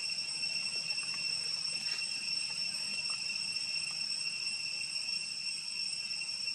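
Steady high-pitched drone of insects, one unbroken whine that holds the same pitch and level throughout.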